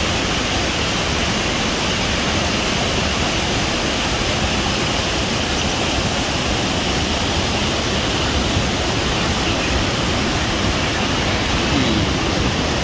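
Waterfall: falling water rushing as a loud, steady, even noise.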